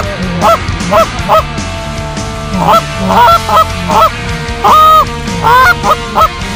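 Hand-blown goose calls sounding a quick run of loud, short honks and clucks to lure a passing flock of geese, with one longer drawn-out note about five seconds in.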